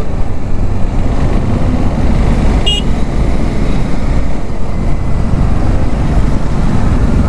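Wind buffeting a motorcycle rider's external microphone, heard as a steady dense low rumble, over the motorcycle's engine and road traffic. A short vehicle horn toot sounds about two and a half seconds in.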